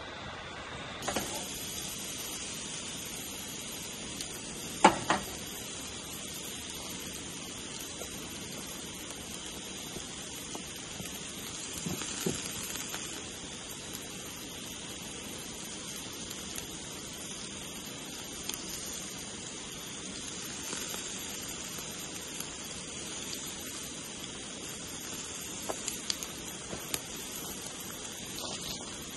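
Steak sizzling on a grill over a campfire: a steady hiss with a few sharp pops and crackles, the loudest about five seconds in.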